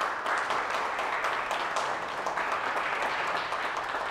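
Audience applauding steadily with many hands clapping.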